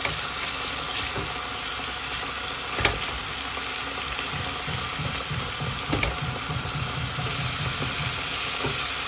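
Food sizzling steadily in a frying pan as it is stirred, with two knocks about three and six seconds in.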